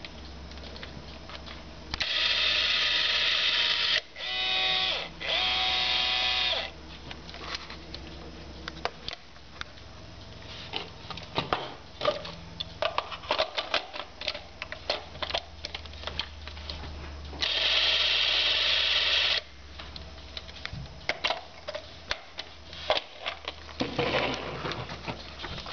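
Super 8 movie camera's electric motor running in three short bursts of about two seconds each, a steady whirr with a pitched hum. Sharp clicks and knocks from the camera's controls and handling fall between the runs.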